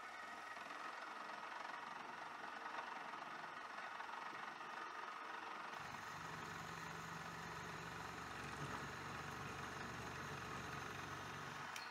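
Milling spindle of a hobby lathe-mill combo running with a steady motor whine while an end mill drills into an aluminium plate; about six seconds in, a deeper hum joins it.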